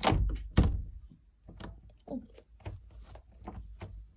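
Round metal doorknob being turned and rattled with a run of irregular clicks, after two louder knocks against the door near the start. The latch is jammed and the door will not open.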